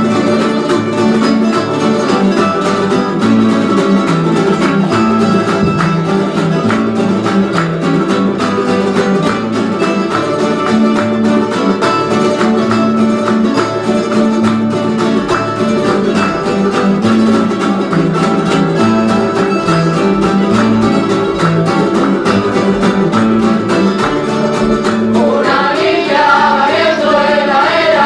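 Canarian folk group playing a steady tune on guitars and other plucked string instruments; voices come in singing near the end.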